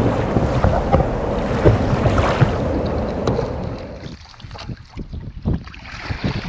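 Water rushing and churning around a paddle-mounted camera as the kayak paddle blade is pulled through the water. About four seconds in the camera comes up out of the water, and the sound drops to wind on the microphone with scattered drips and small splashes.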